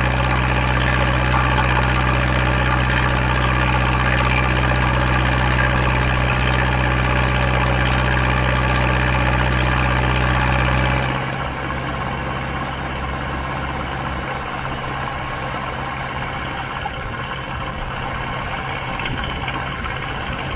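Zetor 7011's 3.6-litre four-cylinder diesel engine running steadily as the tractor drives. About halfway through the sound turns suddenly quieter and less even.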